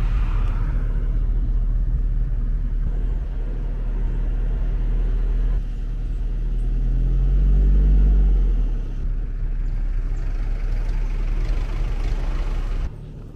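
Motor vehicle running, a steady low engine-and-road rumble that swells and falls away around eight seconds in, then drops off suddenly near the end.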